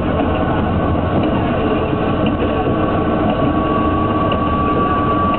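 Train running along the track: a steady, loud noise of wheels on rails. A thin, steady high tone joins about three and a half seconds in.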